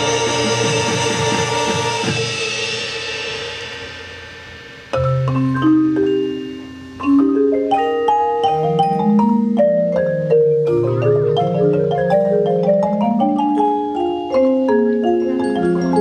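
A marching band's held chord fades away over the first four seconds or so. Then the front ensemble's marimbas and other mallet percussion come in, playing a quick melodic run of separate notes over a low bass line.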